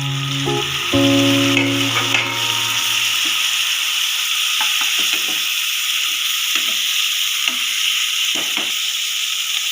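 Chopped tomatoes frying in hot oil with onions and cashews in a pan, a steady sizzle with a few stirring knocks from about four seconds in. Background music notes play over the first few seconds.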